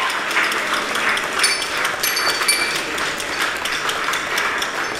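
Audience applauding: dense clapping throughout. A few short high tones sound about one and a half to two and a half seconds in.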